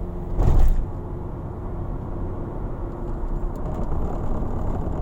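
Low, steady rumble of a 2006 Toyota Tarago minivan driving, heard inside the cabin, with one loud thump about half a second in.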